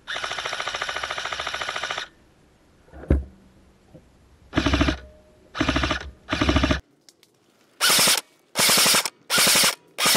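Airsoft electric rifles firing full-auto: one long burst of about two seconds, then a string of short bursts of about half a second each.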